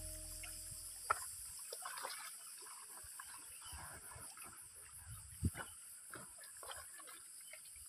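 Faint splashing and trickling of water as a man scoops lake water over his head and buckets are handled at the water's edge, with a few small clicks and two sharper knocks, about a second in and about five and a half seconds in.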